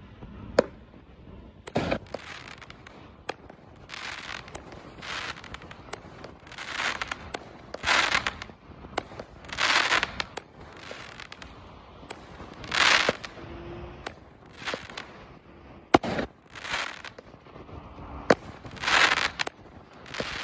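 Winda Fireworks 'Avalanche' 16-shot consumer firework cake firing. Each shot is a sharp launch bang followed by about a second of crackling from the bursting shell, repeating roughly every one to two seconds.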